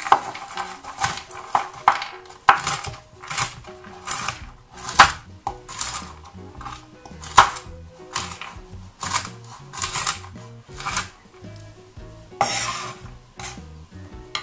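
Chef's knife chopping walnuts on a wooden cutting board: sharp cuts repeated about once a second, with one longer, drawn-out stroke near the end.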